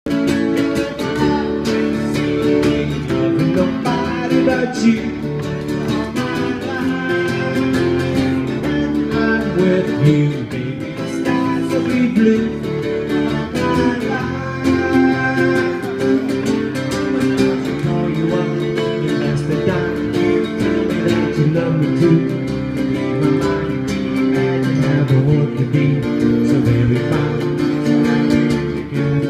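Music played on acoustic guitar, strummed steadily throughout.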